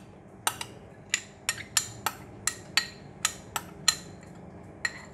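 A metal spoon clinking and scraping against a small glass bowl as sauce is spooned out of it: a run of sharp, bright clinks at irregular intervals, about two or three a second.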